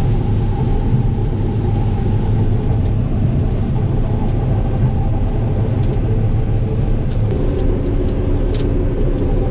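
Combine harvester running steadily in a corn field, a deep even engine drone; about seven seconds in, a new steady higher hum joins the sound.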